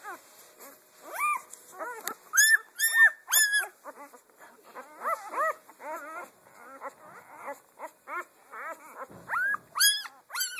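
Five-day-old German Shepherd puppies squeaking and whimpering: a steady run of short, high, rising-and-falling cries, loudest in a cluster about two and a half to three and a half seconds in and again near the end.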